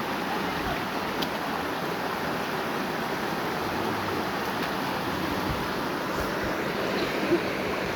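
Waterfall rushing steadily, a constant wash of falling water, with a few faint clicks.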